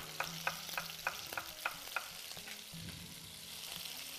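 Lamb pieces frying in hot oil in a pan, sizzling steadily. Sharp regular taps about three a second run through the first half and then stop, leaving only the sizzle.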